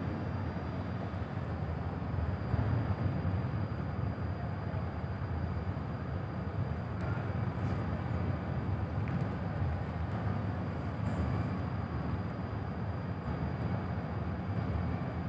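Steady low rumble of ship engines running in harbour as the vessel readies for departure, with a faint high steady whine above it.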